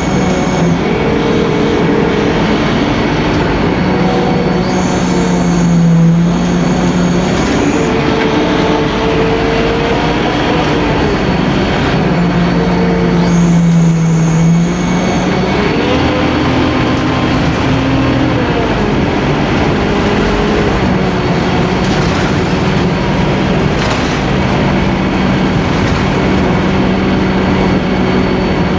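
Scania K-310IA bus's five-cylinder inline turbodiesel running hard under way over steady road noise, its pitch climbing and falling several times as the bus pulls away and changes speed. The two loudest stretches, about six and fourteen seconds in, carry a high thin whistle.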